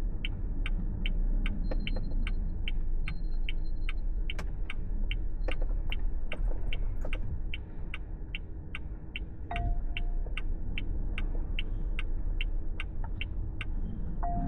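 Car turn-signal indicator ticking evenly, about three ticks a second, over a steady low rumble of road noise inside the AITO M9's cabin. Two short beeps sound, one about halfway through and one near the end.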